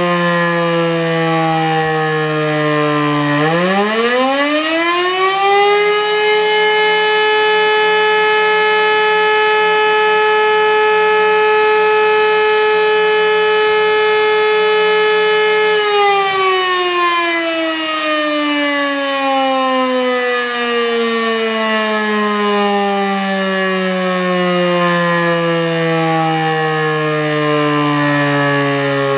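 Elektror E57 electromechanical siren. It is winding down, then spins up again a few seconds in to a steady high howl. It holds that howl for about ten seconds, then winds down slowly for the rest of the time. It is one on-off blast of the kind that makes up the German fire-alarm signal.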